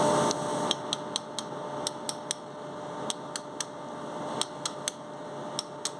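Light hammer taps on a steel pin punch set in a spindle's lock nut, knocking the nut round to loosen it: about fifteen sharp metallic clicks, often in quick twos and threes.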